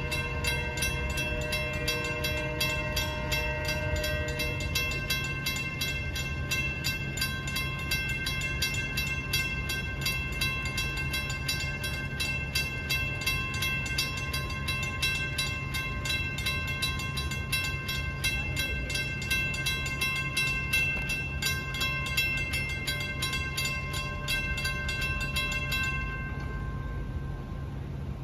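Railroad crossing warning bell dinging rapidly and evenly over the low rumble of a departing train. The bell stops shortly before the end as the crossing clears and the gates start to rise.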